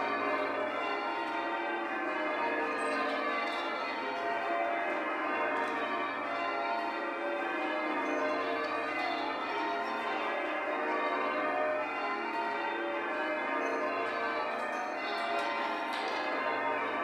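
Church bells rung full circle in English change ringing: a continuous, even stream of overlapping bell strikes from a ring of tower bells.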